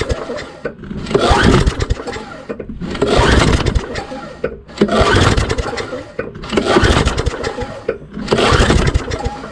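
Craftsman push mower's Tecumseh engine cranked by its recoil pull-start, about six rope pulls each roughly a second and a half apart. The engine spins over on each pull but never fires: the ignition check shows no spark.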